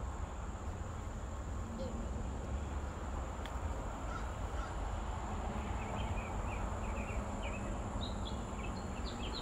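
Outdoor ambience: a steady low rumble under a constant high-pitched insect drone, with birds calling in short chirps from about six seconds in.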